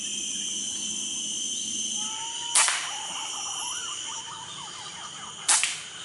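Two sharp air-rifle shots about three seconds apart, over a steady high insect drone and faint whistled bird calls.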